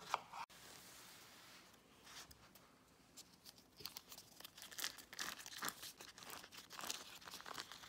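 Paper cupcake liner crinkling and tearing as it is peeled off a sponge cupcake, a run of quick rustles and rips from about two seconds in. A short sharp sound comes right at the start.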